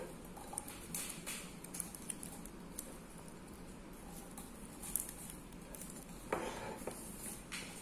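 Jute twine being wound around an upside-down ceramic bowl: faint rustling and scraping of the twine against the glazed bowl and fingers, with a few light clicks.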